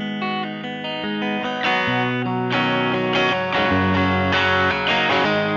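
Fender '52 Telecaster played through a Fuzz Face fuzz pedal into a 1966 Fender Vibrolux Reverb amplifier. Ringing, mildly distorted notes and chords get brighter and louder from about two seconds in as the picking digs in harder.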